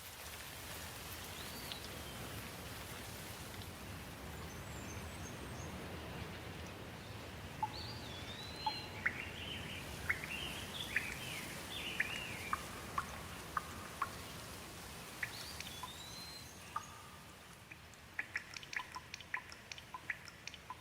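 Steady rain hiss with birds chirping now and then, busiest in the middle. Near the end, quick sharp drips of single drops patter in.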